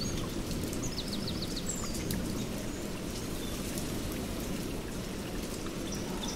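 Steady low background rumble, with a few high bird chirps, one quick trill of chirps about a second in.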